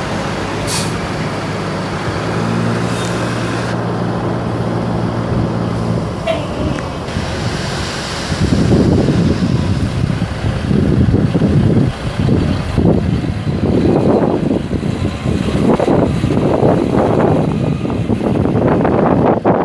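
Cummins 10-litre straight-six turbo diesel of a 1997 Ford LT9000 mixer truck running as the truck drives across the yard, a steady engine note that turns louder and uneven from about eight seconds in. Wind buffets the microphone.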